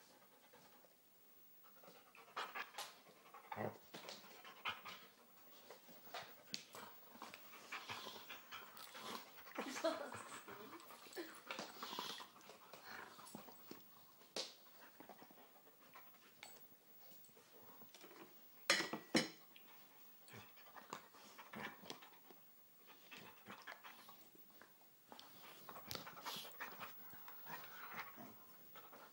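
Two dogs tussling over a bone, panting and huffing in irregular bursts, with scattered sharp clicks; the loudest click comes about 19 seconds in.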